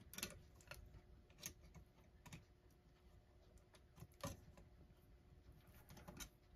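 Faint, irregular clicks of a small screwdriver prying and catching at a clock's retaining ring, about six over several seconds, the loudest a little after four seconds in.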